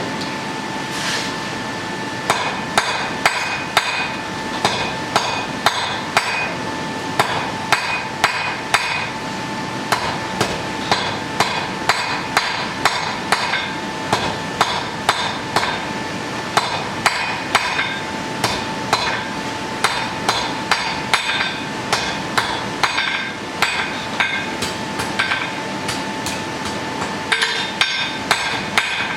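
Blacksmith's hammer striking hot iron on an anvil while forging a bodkin arrowhead, in quick runs of ringing blows about two to three a second. The blows start about two seconds in and thin out for a few seconds near the end, over a steady hum.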